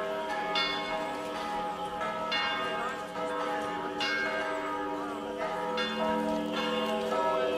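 Serbian Orthodox church bells ringing, a new strike coming about every one and a half to two seconds. Several bell tones ring on and overlap.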